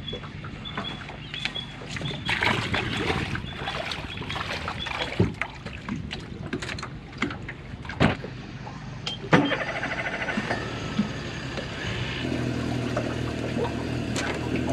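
Gear being loaded into an aluminium tinny: scattered knocks and thuds against the hull, over a steady low engine hum that grows stronger about twelve seconds in.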